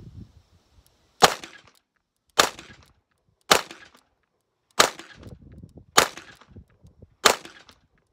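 Nighthawk Korth revolver fired six times with its 9mm cylinder fitted, one shot about every 1.2 seconds, each a sharp report with a short fading tail.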